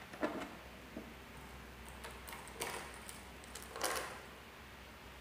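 A few light clicks and brief rustles as banana-plug patch cords are handled and plugged into the sockets of an op-amp trainer panel, over a faint low hum.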